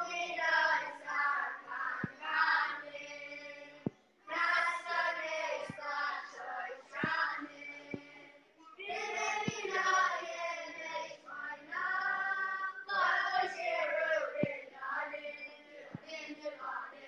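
Boys' choir singing together in phrases, with short breaks about four, eight and thirteen seconds in.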